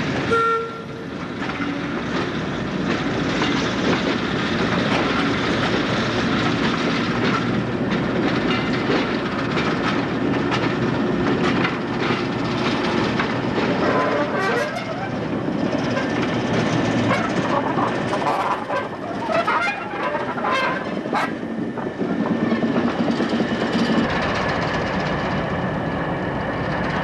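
Diesel locomotive engines running at a depot, a steady drone. Through the middle stretch come a run of sharp clicks and knocks, like wheels over rail joints as a locomotive moves slowly.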